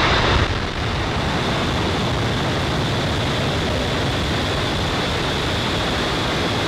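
Falcon 9 first stage's nine Merlin 1D engines at full thrust just after liftoff: a loud, steady rocket roar, a little louder in the first half second and then even.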